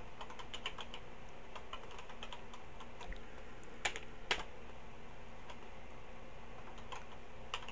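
Typing on a Tandy TRS-80 Color Computer 2 keyboard: an irregular run of key clicks, with two louder key strikes about four seconds in, over a faint steady hum.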